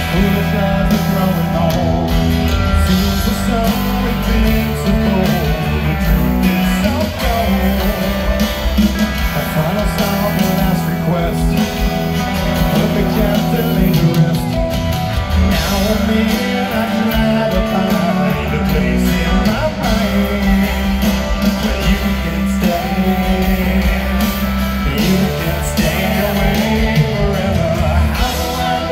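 Live rock band playing through a large PA, with a singer and guitar over heavy bass, heard from within the crowd.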